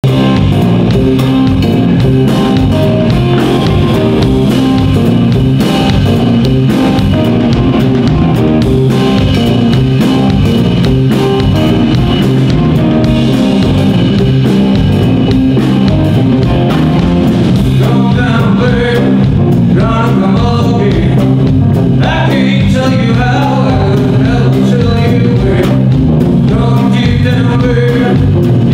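Live blues-rock band playing loud and steady: electric guitars over a drum kit, with a wavering lead line coming in past halfway.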